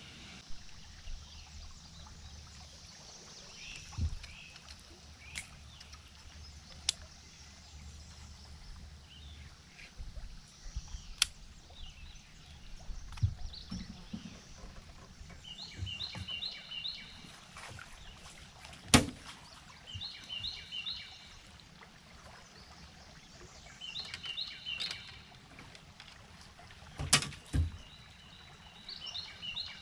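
A songbird repeats a short phrase of quick high notes about every four seconds, while scattered sharp knocks and clunks come from someone moving about in a small boat. A low hum stops about ten seconds in.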